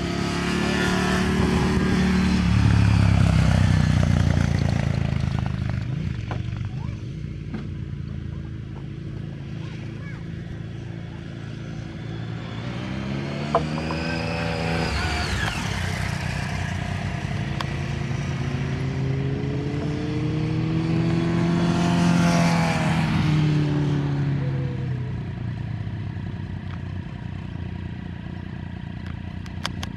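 Yamaha DT 125 single-cylinder two-stroke motorcycle engine revving up and falling off as the bike rides past, in several swells. It is loudest about three seconds in and swells again near the middle and about two-thirds of the way through.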